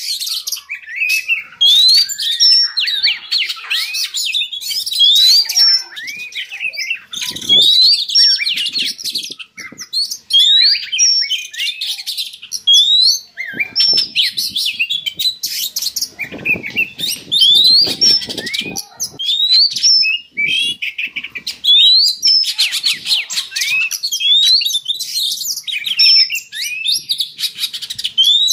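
Oriental magpie-robin singing: loud phrases of rising whistles mixed with quick chattering notes, repeating every two to three seconds. This is the breeding-condition song played as a lure to stir up kept magpie-robins. A few faint low knocks come in about a third and about two thirds of the way through.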